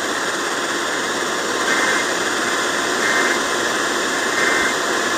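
Radio receiver static: a steady hiss of weak-signal noise from an off-air weather-radio reception, with three short, slightly louder bursts a little over a second apart.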